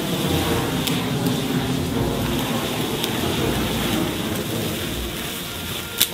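A huge bundle of sparklers, about 5000 lit at once, burning with a steady loud hissing roar, a few sharp crackles through it and one loud pop near the end.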